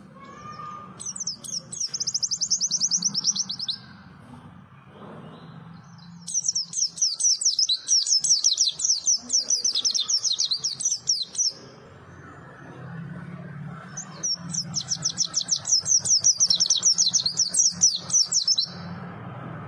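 White-eye (pleci) singing three long phrases of rapid, high chattering notes, about a second in, at about six seconds, and from about thirteen seconds to near the end.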